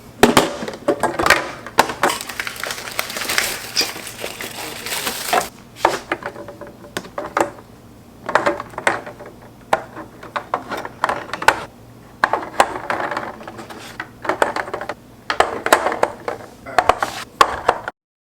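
Household objects being handled: a dense run of clicks, knocks and rustling for about the first five seconds, then separate bursts of clatter and rustle, as of things being tidied, picked up and set down.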